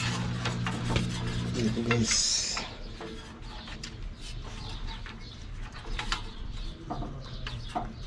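Scattered light clicks and clinks of tools and metal parts being handled, with a brief hiss just after two seconds in. A low bird coo sounds underneath until about two seconds in.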